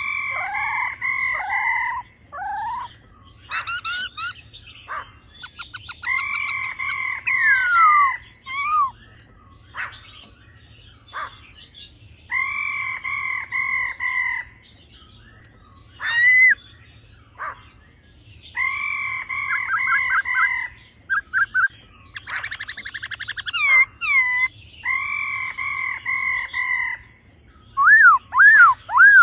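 Black-throated laughingthrush calling, male song with the female's rattling "ro" call. It repeats a loud phrase of several held notes about every six seconds, with whistled rising and falling notes and quick rattling trills in between.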